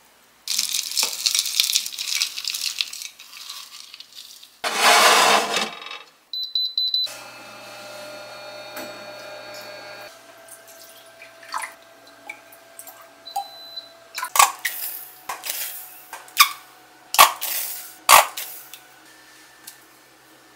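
Kitchen cooking sounds: rustling and scraping at a ceramic baking dish, then a few short electronic oven beeps and the steady hum of the oven running. Near the end, a spoon and small bottles clink against a glass mug as a sauce is stirred together.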